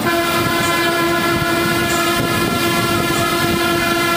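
Bus horn sounding one long, steady blast that starts suddenly and is held for several seconds, over the low running noise of the bus.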